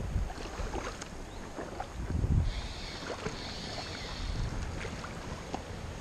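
Water splashing and sloshing as a hooked trout fights at the surface just below the bank, with low wind buffeting on the microphone.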